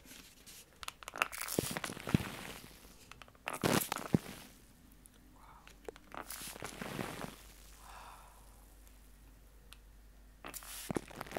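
Trigger spray bottle misting water onto a plastic-wrapped microphone: several short spray hisses a few seconds apart, with crinkles and clicks from the wrap and trigger.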